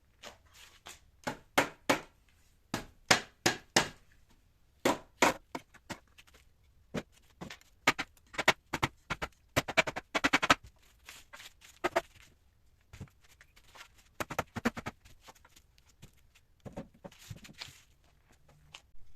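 Sharp knocks and clatters in irregular groups, with a rapid flurry about halfway through, from hand work on a wooden chair being taken apart.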